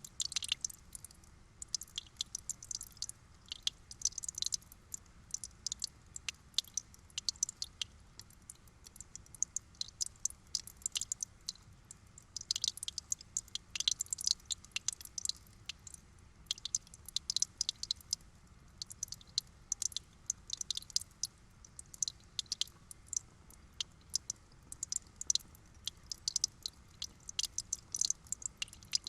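Water trickling, heard as a dense, irregular patter of small drips and splashes.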